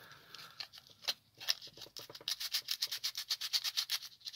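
Folded sandpaper rubbed back and forth on the inside of a thick plastic 1/72 model fuselage half, thinning it so the cockpit parts will fit. It begins with a few scattered strokes, then becomes a quick, even run of short scratchy strokes in the second half.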